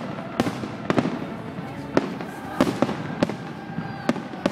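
Aerial firework shells bursting in an irregular run of sharp bangs, roughly one or two a second.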